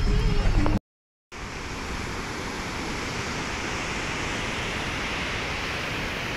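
Steady, unbroken rush of a fast, muddy river running high. It follows a brief moment of music and engine noise inside a vehicle that cuts off abruptly about a second in.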